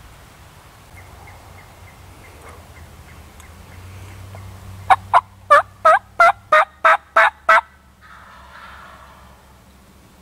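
A series of about nine loud, evenly spaced turkey yelps, each note dropping in pitch, lasting under three seconds about halfway through.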